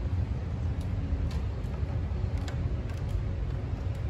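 Steady low rumble of ambient noise, with faint, irregular clicks of footsteps on the wooden floor.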